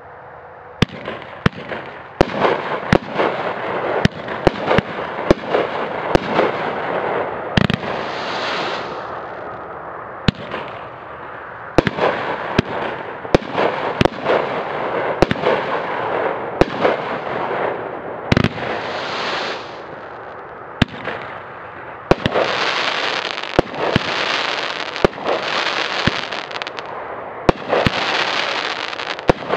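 Hop Kee Twister 35-shot consumer firework cake firing shot after shot: a rapid string of sharp reports from launches and breaks over a continuous hiss of burning effects. In the last eight seconds or so the hiss comes in louder waves, each lasting about a second.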